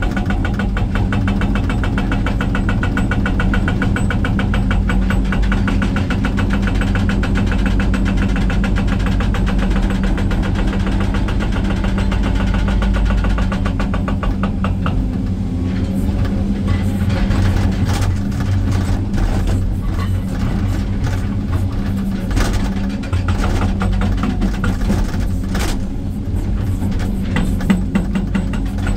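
Excavator-mounted hydraulic breaker hammering rock, heard from inside the operator's cab over the excavator's steady diesel engine. The blows come fast and even for about the first half, then turn sparser and more irregular.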